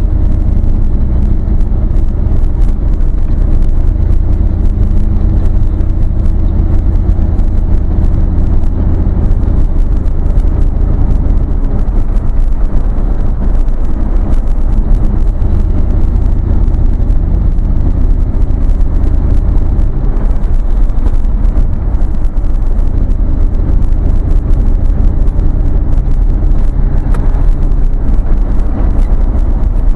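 A vehicle's engine and exhaust running steadily while driving slowly, with a loud low rumble heard from inside the cab. The engine note shifts a few times with speed.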